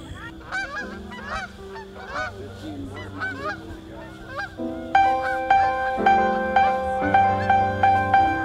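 A flock of geese honking in flight, many overlapping calls, growing louder and more regular, about three honks a second, from about five seconds in. Soft background music with held notes plays underneath.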